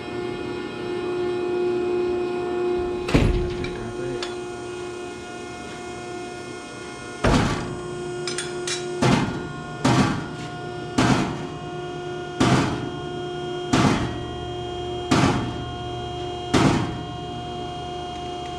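Hammer blows on steel: one heavy strike about three seconds in, then a steady run of eight strikes about a second and a half apart, over a steady hum.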